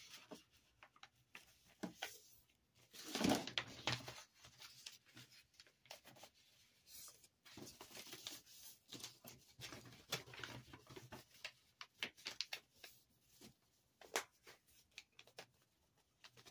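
Paper rustling, with light taps and scrapes against a cardboard shipping box, as a packing slip is handled and put in the box. There is a louder rustle about three seconds in, then scattered quieter clicks.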